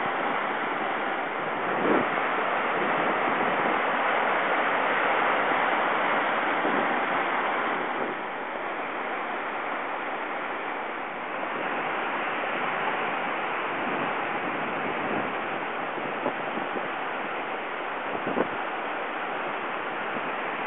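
Floodwater rushing past in a steady roar, with a few faint knocks along the way.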